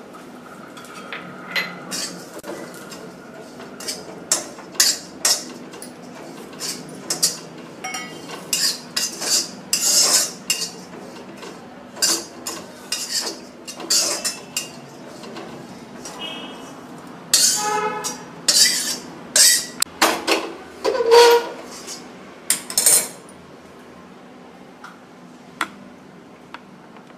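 A metal spatula scraping and clinking against a metal kadhai as slivered almonds are stirred and dry-roasted, in quick irregular strokes that stop about 23 seconds in.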